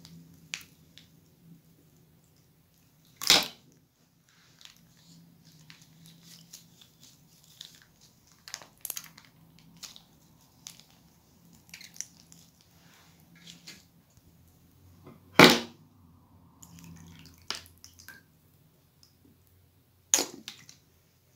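Slime and clear glue squeezed out of a plastic piping bag and a squeeze bottle onto foam beads: scattered small crackles and squelches, with three louder sharp sounds several seconds apart.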